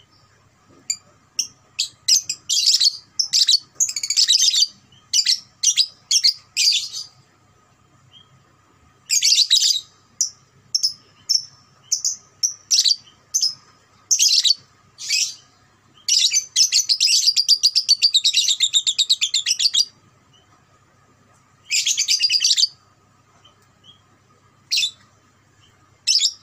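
Young Fischer's lovebird calling in series of sharp, high chirps, breaking into a long rapid chattering trill (ngekek) of about three and a half seconds a little past the middle, then a shorter burst and a few single chirps.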